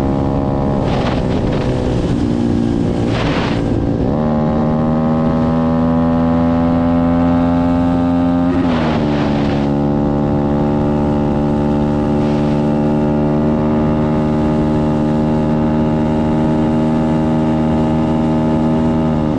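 125cc pit bike engine with a Nibbi carburettor running hard at speed, holding a steady high note that drops in pitch near nine seconds as it shifts up. Short gusts of wind rush past the microphone a few times.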